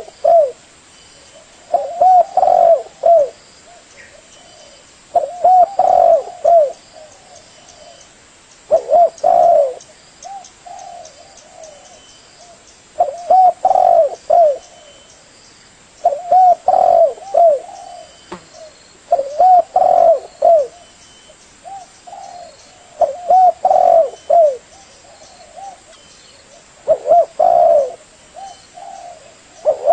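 Spotted dove (tekukur) cooing: a phrase of several short, arched coos, repeated roughly every three to four seconds, with a few softer phrases in between.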